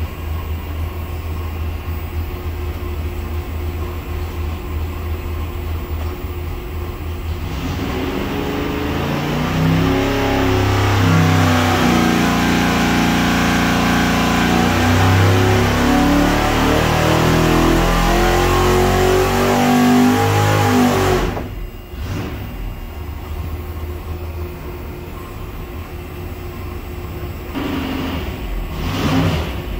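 Carbureted V8 race engine on an engine dyno, idling and then brought up to speed and held, rising in pitch under load in a dyno pull toward 6,000 rpm. About 21 seconds in it cuts off abruptly and falls back to idle, with a short blip of throttle near the end.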